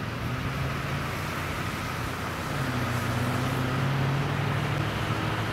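Vehicle engines running: a steady low hum over road noise, its pitch shifting slightly about two and a half seconds in.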